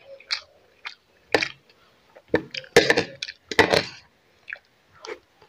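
A person chewing a mouthful of fried rice close to the microphone: a run of irregular, crunchy chewing noises.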